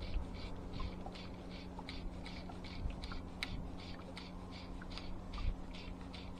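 Fly line being stripped in by hand on a retrieve, a rhythmic rasp about three times a second, each pull a short dry zip.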